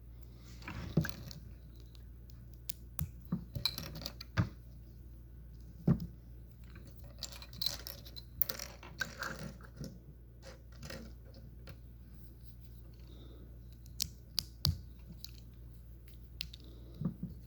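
Plastic Lego pieces clicking and clinking as they are handled and snapped together, with short bursts of rustling between, as pieces are searched for. The clicks are scattered and irregular, a few of them sharp.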